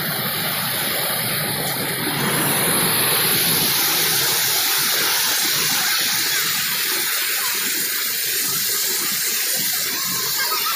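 Rushing river water, swollen with rain: a steady, even rush that grows louder about two seconds in.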